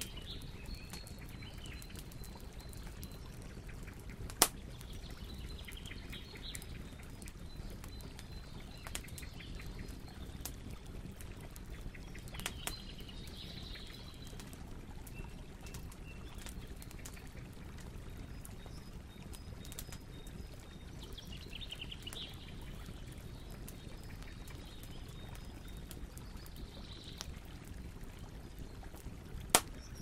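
Large log bonfire burning with a steady low rush and sharp pops of cracking wood, two loud pops about four seconds in and near the end. Faint high chirps recur every few seconds.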